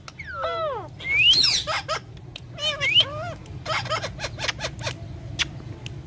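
Alexandrine parakeet calling: a series of short gliding squawks and whistles, some falling and some rising in pitch, bunched in the first half. Sharp clicks come in between.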